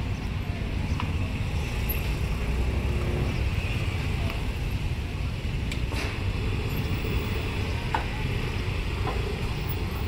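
Outdoor street ambience: a steady low rumble of traffic, broken by a few short, sharp clicks.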